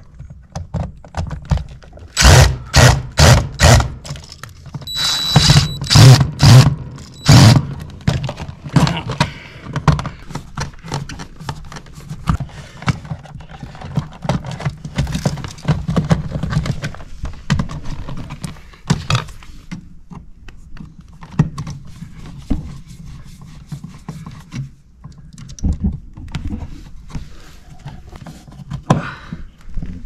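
Cordless drill-driver run in a string of short trigger bursts, with a high motor whine, driving a receptacle's mounting screw into the wall box between about 2 and 8 seconds in. After that come scattered light knocks, clicks and scrapes as the receptacles and their metal hardware are handled and pushed into the box.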